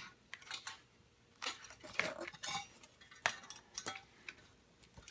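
The thin metal lines of a water heater's new pilot assembly (pilot tube, thermocouple and igniter lead) clinking and ticking as they are handled and bent into place: scattered light metallic clicks, a cluster of them in the middle.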